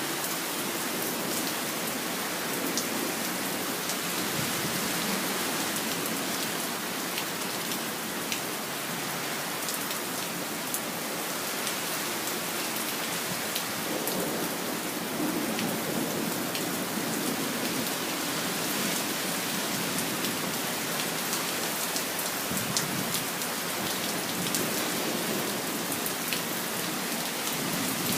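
Steady rain falling, an even hiss with scattered ticks of single drops. Low rumbles of thunder come through around the middle and build near the end.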